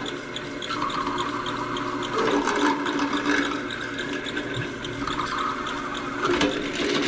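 Drill press running with a steady hum, its 3/8-inch bit boring holes through PVC pipe; the cutting noise swells several times as the bit goes into the plastic.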